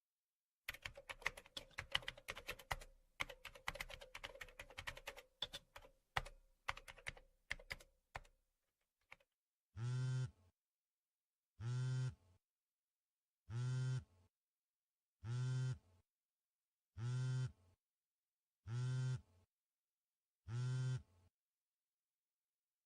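Computer keyboard typing, rapid irregular keystrokes for about eight seconds. Then come seven evenly spaced low buzzing pulses, each under a second long, about one every two seconds.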